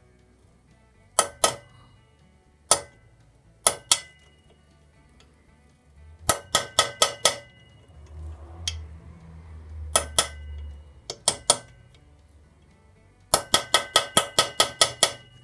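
Hammer tapping a bearing driver to seat a plain crankshaft main bearing into a motorcycle crankcase: sharp, ringing metal-on-metal strikes in small groups, then a quick run of about ten taps near the end.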